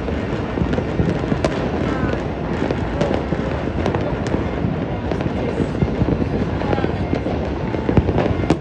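Many fireworks and firecrackers going off at once in a dense, continuous crackle of overlapping bangs, with a sharper bang about eight seconds in.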